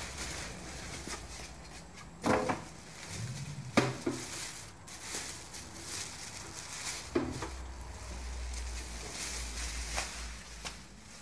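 Plastic wrapping rustling and crinkling as a Camp Chef Triton 5L tankless water heater is unwrapped and handled, with a few sharp knocks from the unit being bumped.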